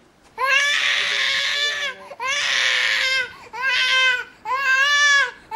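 A baby crying: four wailing cries in a row, each about a second long and rising then falling in pitch, with short breaths between. The first two cries are the loudest and harshest.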